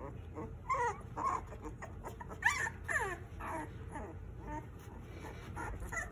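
Young puppies whimpering and whining: a string of short, high cries that slide down in pitch, the loudest about two and a half seconds in.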